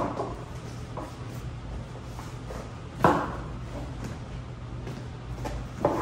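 Folded PVC shell of an inflatable bathtub being unfolded and shaken out by hand: steady rustling and crinkling of the plastic, with three louder flaps: one at the start, one about three seconds in and one near the end.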